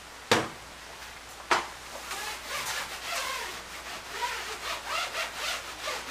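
Paper towel wiped quickly back and forth along a pickup's bed rail with rubbing alcohol, rubbing with short squeaky strokes, several a second. The rail is being cleaned before a bed cover is fitted. Two sharp knocks come in the first second and a half.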